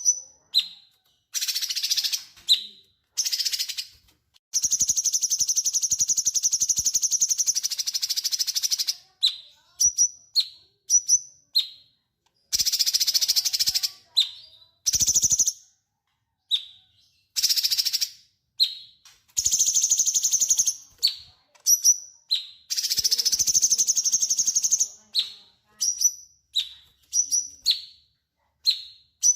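Cucak cungkok singing in full voice (gacor): a string of short, sharp whistled notes broken by several long, fast, buzzy trills of two to four seconds each.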